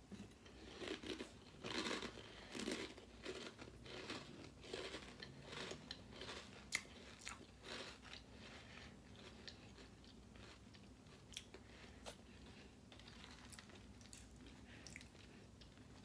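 A person chewing a mouthful of Cap'n Crunch Cotton Candy cereal in milk: a run of faint, quick crunches that thins out about halfway through.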